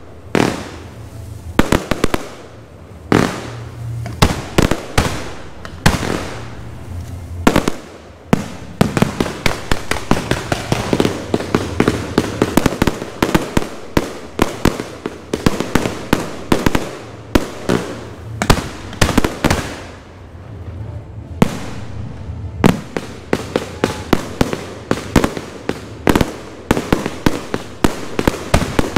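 Aerial fireworks shells bursting in a show: sharp bangs spaced out at first, then coming thick and fast from about eight seconds in, easing briefly around twenty seconds before picking up again.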